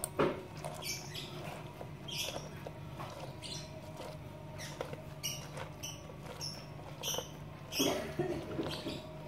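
Half a lemon being twisted and pressed on a manual citrus squeezer: a series of short squeaks and squelches, about one or two a second, as the fruit rubs over the ridged cone and its juice is pressed out.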